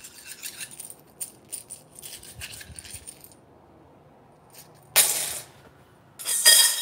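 Small 3D-printed PLA plastic pieces dropped by hand into a stainless steel saucepan, clicking lightly against the metal and against the other pieces for about three seconds. About five seconds in comes a short loud clatter, then loud rattling as the pan is shaken and the plastic pieces toss around inside it.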